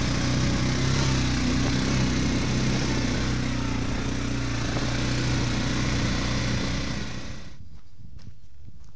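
4x4 ATV engine running steadily under way on a rough track, then cutting off abruptly about seven and a half seconds in, leaving faint knocks and rattles.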